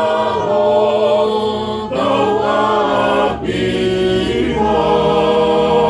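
A group of men and women singing a Tongan hymn a cappella, holding long notes, with short breaks for breath between phrases about two and three and a half seconds in.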